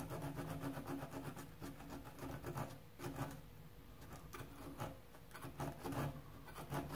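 Small fine-toothed hand saw cutting through the protruding end of a wooden pin at a wooden base plate, in quick short back-and-forth strokes that come in runs with brief pauses.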